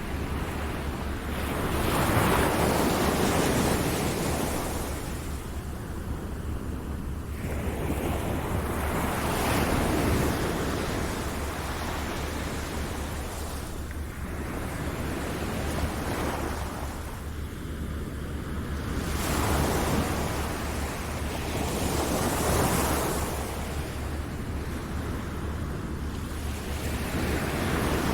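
Ocean waves washing onto a shore, each surge swelling and falling back about every five to six seconds, over a steady low tone.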